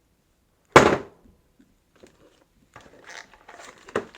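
One sharp, hard clack about a second in, then light rustling of handling and a small knock near the end.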